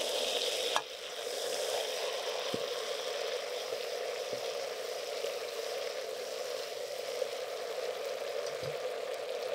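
Kimchi frying in rendered pork-belly fat in a pot: a steady sizzle, its higher hiss easing slightly about a second in, with an occasional faint knock.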